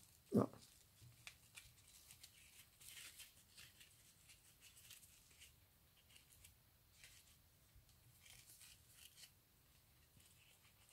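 Faint rustling and light ticks of hands handling ribbon and a headband, pressing a hot-glued bow in place, with one short low thump about half a second in.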